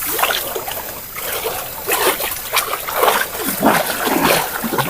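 River water splashing irregularly as a person climbs down off a bamboo raft and wades in shallow water.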